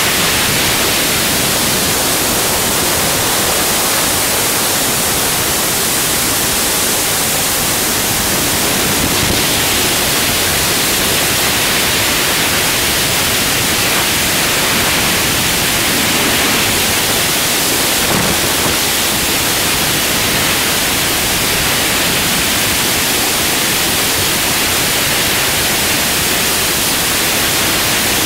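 Steady, loud rush of freefall wind over a skydiving camera's microphone, an even hiss with no other sound in it.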